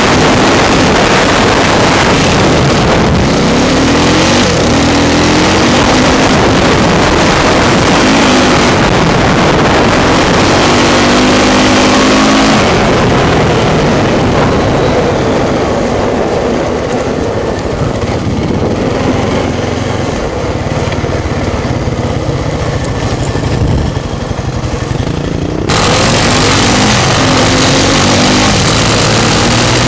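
ATV engine running hard and revving up and down, under heavy wind rush on a helmet-mounted microphone. The wind hiss fades for a stretch in the middle while the engine carries on, then comes back suddenly near the end.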